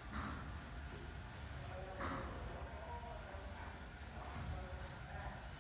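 A small bird giving short, high chirps that slide downward in pitch, four of them one to two seconds apart, over a low steady rumble.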